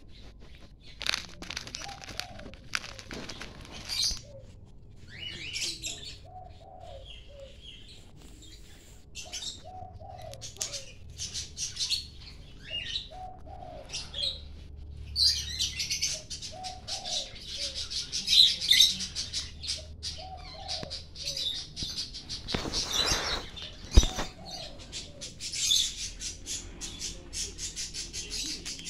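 Pet lovebirds and a cockatiel chirping in quick, shrill bursts, with lower short calls repeating every second or two. Near the end comes a brief burst of noise and a sharp click.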